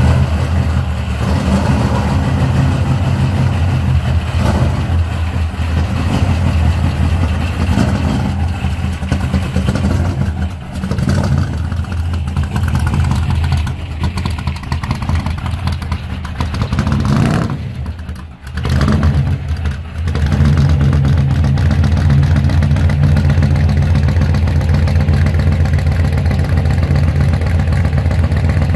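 1957 Chevy gasser's engine running loud, its level rising and falling as the car moves out of the garage, with a brief drop about two-thirds of the way in. It then idles steadily.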